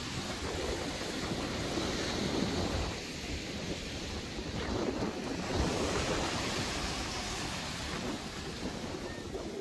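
Ocean surf breaking and washing up the sand, with wind buffeting the microphone, a steady rushing roar that swells a little midway.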